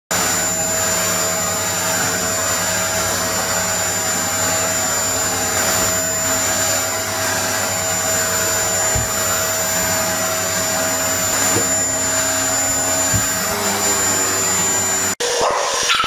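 Vacuum cleaner motor running steadily with a fixed whine while its hose is worked up carpeted stairs, and a small dog barks at the nozzle now and then. About a second before the end the vacuum sound breaks off abruptly and a different, rapidly pulsing sound takes over.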